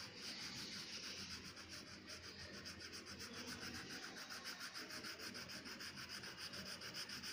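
Faint scratching of a blue crayon rubbed back and forth across a paper workbook page in quick, even strokes while colouring in a shape.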